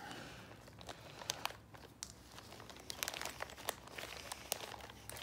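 Thin plastic parts bags crinkling and crackling in gloved hands as bags stapled together are pulled apart, a scatter of light irregular crackles.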